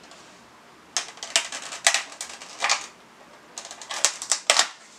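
Kitchen handling noise: two bursts of quick, light clicking and scraping, starting about a second in and again near four seconds, from work on a foil-lined baking tray.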